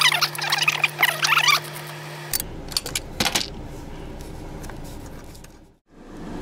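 Short bursts of high metallic squeaking as a seat-mounting bolt is worked loose with a socket wrench, over a steady hum. About two seconds in the hum cuts off and a few light metallic clicks follow.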